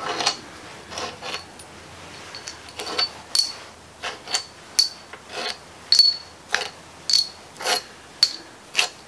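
Sharp metal clinks of a wrench and steel head bolts as the cylinder head bolts of a Ford Model T engine are loosened and lifted out: more than a dozen ringing clicks, unevenly spaced about half a second to a second apart.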